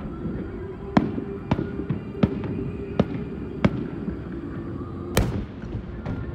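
Aerial firework shells bursting in a string of six sharp bangs, spaced roughly half a second to a second apart, with the last and loudest about five seconds in.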